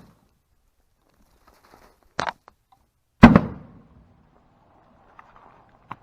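A short sharp snap about two seconds in, then a loud sudden bang a second later that dies away quickly: a 1996 Toyota Corolla's driver airbag firing with eggs sitting on top of it.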